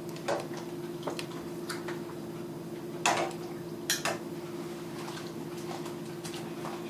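Metal utensils clinking and knocking against a pan and serving tray as roast beef is dipped in hot au jus for a wet sandwich: a scattering of short clicks, the loudest about three seconds in, over a steady low hum.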